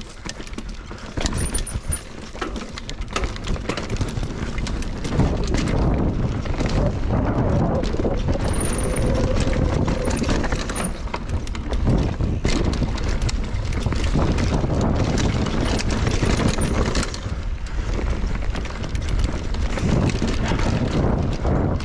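Mountain bike ridden fast down a dirt trail: wind rushing over the microphone and tyres rumbling on the ground, with the bike rattling and knocking over the bumps. It gets louder about five seconds in as the speed picks up.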